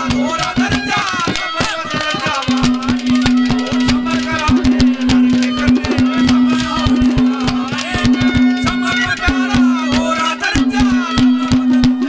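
Instrumental interlude of live Haryanvi ragni folk music: fast drumming under a steady held note, with a melody line that bends up and down.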